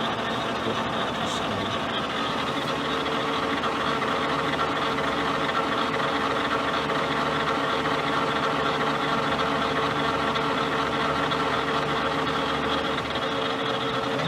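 1980 LeBlond Regal Servo Shift engine lathe running, its spindle drive and gearbox giving a steady hum with a held whine, while the carriage traverses under power feed.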